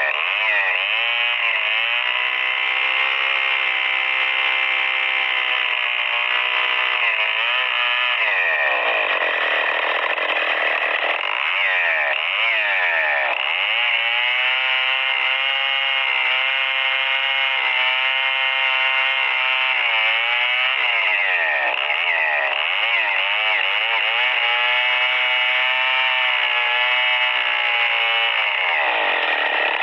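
STIHL 070 two-stroke chainsaw running under load as it rips lengthwise through a Merbau hardwood log. The engine's pitch wavers, dipping and picking up again several times as the throttle is worked and the chain bogs in the cut.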